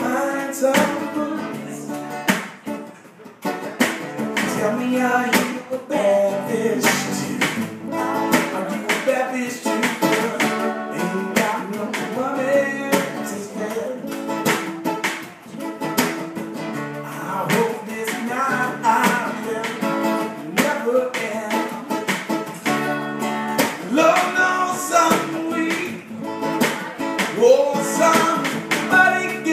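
Live acoustic music: a man sings while strumming an acoustic guitar, backed by a snare drum played with hands and sticks.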